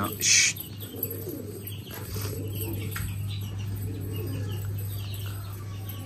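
Domestic fancy pigeons cooing while the cocks puff up and display. There is a short loud hiss about a quarter of a second in, over a steady low hum.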